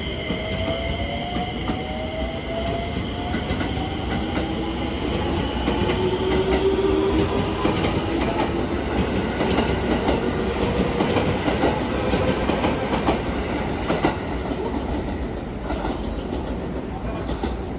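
Electric multiple-unit train pulling out and accelerating: the traction-motor whine climbs steadily in pitch while the wheels clatter over the rail joints and points. The clatter fades as the last car moves away.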